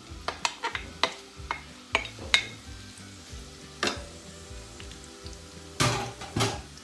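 Chopped carrot, courgette and onion frying in hot oil in a pan, with a run of sharp knocks and clatters of a utensil against the pan as the vegetables are tipped in and stirred; the loudest knocks come near the end.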